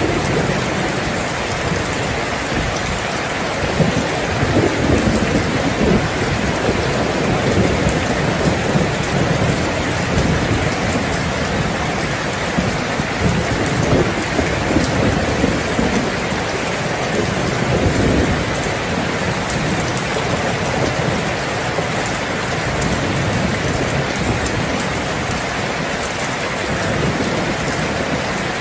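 Heavy rain falling steadily, with low rolls of thunder rumbling beneath it. The thunder swells a few seconds in and again a little past the middle.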